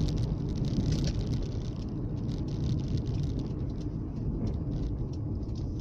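Car driving, heard from inside the cabin: steady engine and tyre rumble on the road, the higher hiss easing after about two seconds.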